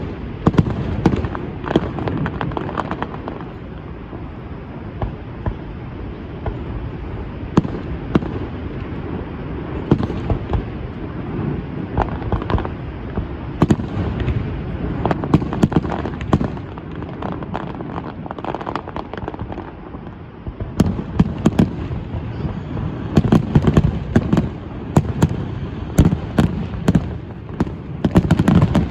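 Fireworks going off: a steady run of bangs and crackles over a low rumble, thickening into a rapid barrage about three quarters of the way through.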